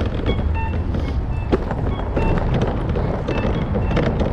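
Street noise: a steady low traffic rumble with wind buffeting the microphone, scattered handling clicks, and short high tonal notes now and then.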